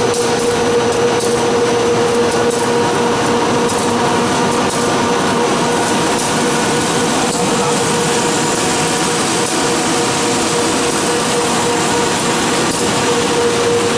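Fish feed extrusion production line running: loud, steady machine noise with a constant hum tone through it.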